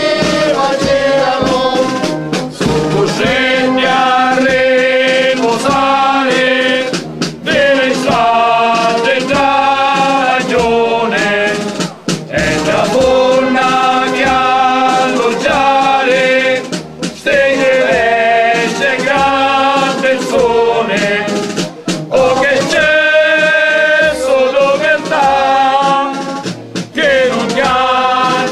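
Voices singing a devotional hymn, in phrases of about five seconds with brief breaks between them.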